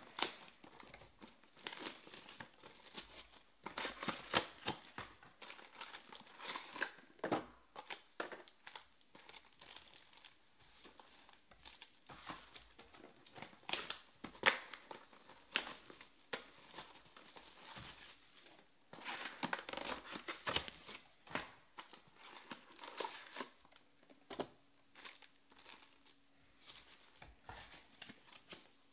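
Plastic wrapping and foil-wrapped trading-card packs crinkling and tearing in irregular bursts of rustling as a sealed hobby box is unwrapped and its packs are taken out and stacked.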